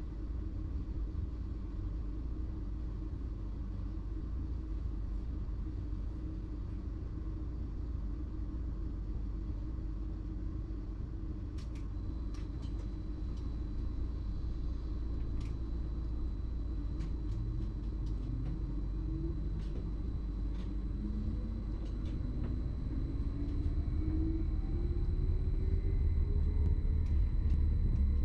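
BLS RABe 515 'MUTZ' electric multiple unit heard from inside the driver's cab: a steady low running rumble, with scattered sharp clicks from about halfway. In the last third the electric traction drive's whine rises in pitch in steps and the sound gets louder as the train accelerates.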